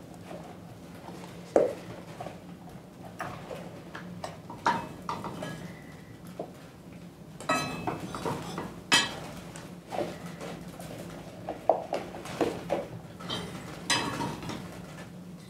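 Irregular clinks, knocks and scrapes of metal utensils against a pan and dishes as they are handled, over a steady low hum.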